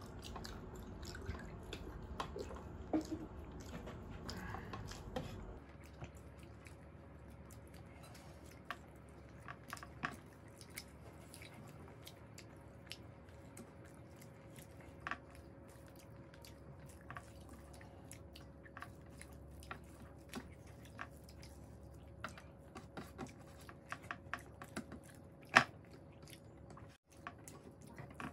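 Two people eating rice and curry with their hands: chewing, lip smacks and the wet squish of fingers mixing rice, with many scattered short clicks and one louder click near the end.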